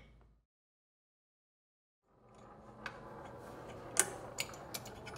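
Small metal clicks and taps as the yoke and steel rod of a Kimray Gen II level controller's linkage are worked into place by hand, the sharpest click about four seconds in. Dead silence for about a second and a half near the start.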